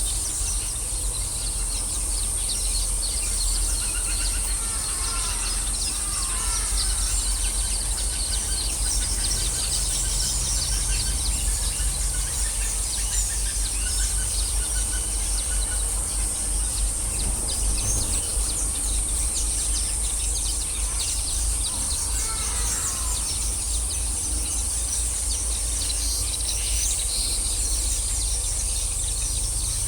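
Busy chatter of a weaver-bird colony in a marsh: many overlapping high chirps, with a few downward-sliding calls, once early and once about two-thirds through. Under it runs a steady high insect drone and a low rumble.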